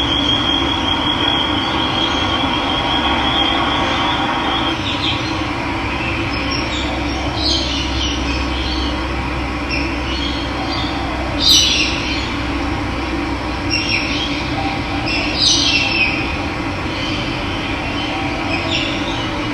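Steady rush of running water with wild birds calling now and then over it: short high calls every few seconds, the loudest about two-thirds of the way through. A thin, steady high note sounds for the first few seconds.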